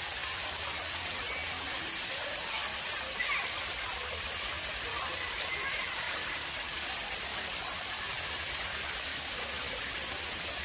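Water running steadily into an artificial pond, a continuous even splashing hiss.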